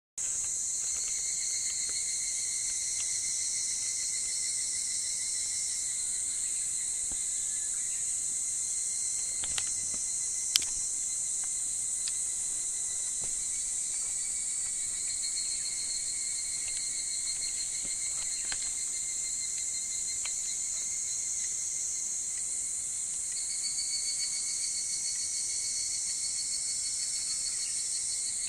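Chorus of higurashi cicadas (Tanna japonensis) calling together, a dense steady high ringing with several overlapping trills. A single sharp click about ten seconds in.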